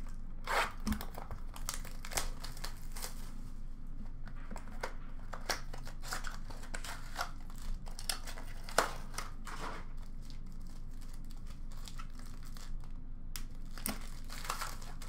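Foil trading-card pack wrappers crinkling and being torn open, with cards being handled: irregular rustles and crackles throughout, over a steady low hum.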